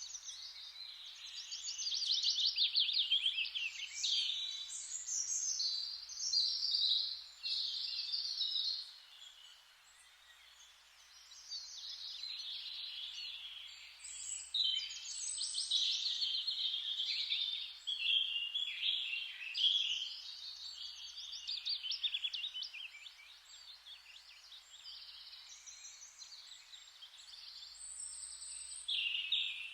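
Forest ambience: several birds singing and chirping with quick trills and repeated notes, over a steady soft hiss.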